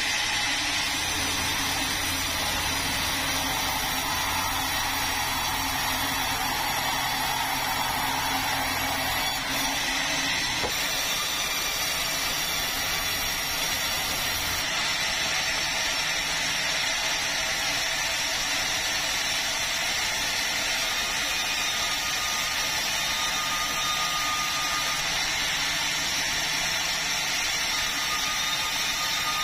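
Power saw running steadily through a red meranti log. A dense, even cutting noise, with a low hum underneath that drops out about nine to ten seconds in.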